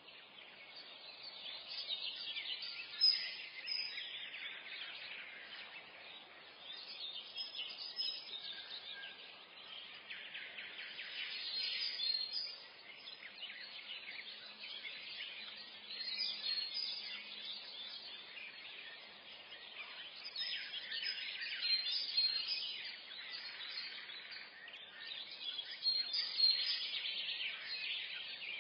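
Morning forest bird chorus: many small birds chirping and singing at once, high-pitched, swelling and easing off in waves.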